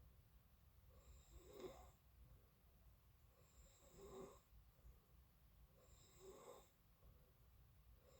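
A person snoring faintly in sleep, three snores roughly every two and a half seconds.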